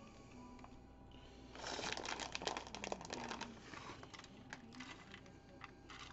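Crinkling and rustling of plastic packaging as shredded cheese is handled, loudest for about two seconds, then lighter scattered clicks and rustles.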